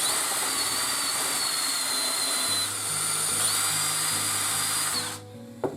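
Power drill running steadily as it bores out a soft plastic coolant-hose nozzle, a high whine that sags slightly past the halfway mark and then picks up again, stopping about five seconds in.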